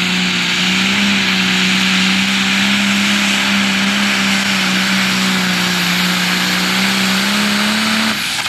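Turbocharged diesel engine of a super stock pulling tractor running flat out under full load as it drags the weight-transfer sled. It is loud and holds one steady pitch, and about eight seconds in the throttle is chopped at the end of the pull, the sound dropping sharply and the pitch falling.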